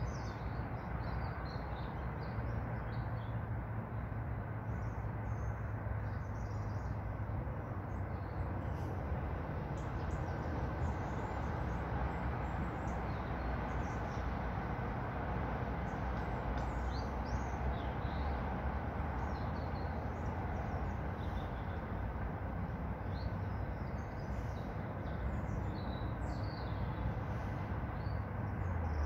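Small birds chirping in short, scattered calls throughout, over a steady low rumble and hiss.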